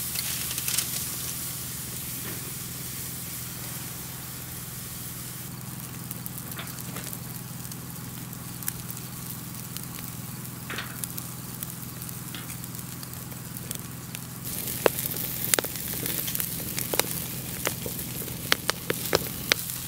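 Steaks sizzling on a grill grate over a wood fire, the burning logs crackling. Sharp pops come thick and fast in the last few seconds.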